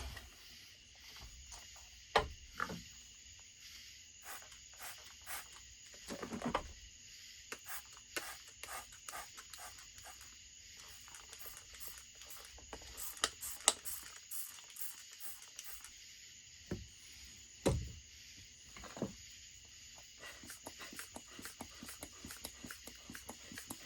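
Irregular light clicks and a few sharper knocks from handling a chainsaw and tools at the bench, over a steady faint hiss.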